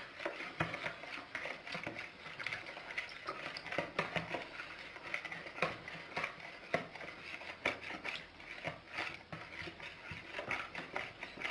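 A spoon stirring citric acid (lemon salt) into warm water in a container, with irregular clinks and scrapes against its sides as the crystals dissolve.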